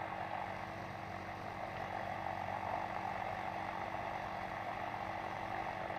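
Quicksilver ultralight's engine running steadily at taxi power as it rolls down the runway, heard muffled through a microphone inside the headset.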